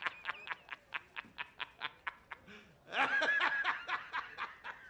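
A person laughing: a long run of quick ha-ha pulses, about five a second, with a louder, higher-pitched stretch about three seconds in before the pulses resume.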